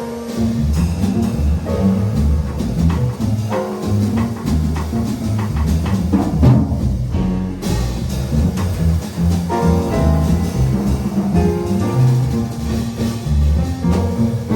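Jazz piano trio playing: piano over double bass and drum kit.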